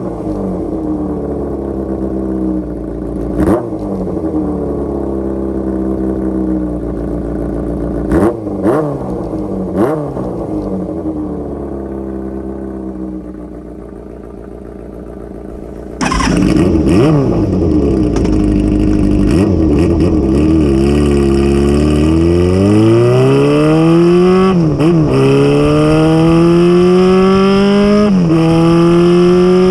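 Kawasaki GPZ400F inline-four revving through a MISTY-type aftermarket exhaust: repeated throttle blips rising and falling for the first half. About halfway it suddenly gets much louder and the engine pulls steadily up through the revs, with two short dips like gear changes near the end.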